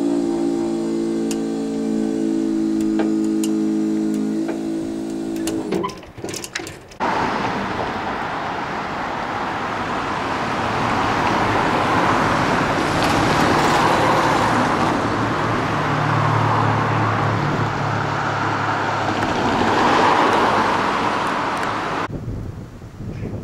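Vehicle noise in several cut-together parts. First a steady engine-like hum, then a short clattering break, then a long rushing pass that swells twice before stopping abruptly near the end.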